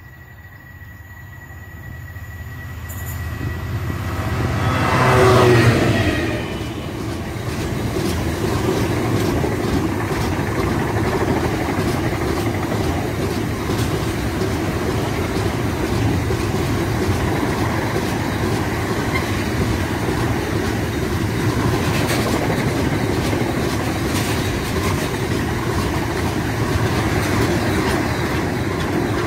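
A freight train passing close by: the locomotive approaches and goes by about five seconds in, its note dropping in pitch as it passes, followed by the steady rumble of a long rake of enclosed wagons rolling past.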